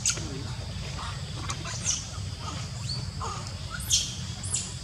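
Several short, high-pitched animal calls, each falling quickly in pitch, the loudest pair coming about four seconds in, over a steady low rumble.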